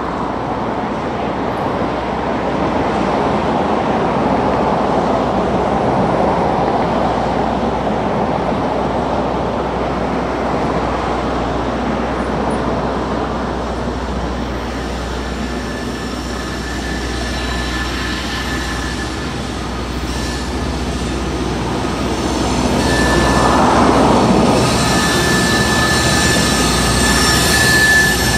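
LORAM rail grinder train approaching and reaching the camera: a rumbling run that grows, with a steady high-pitched whine coming in about halfway and getting stronger, and the loudest swell a few seconds before the end.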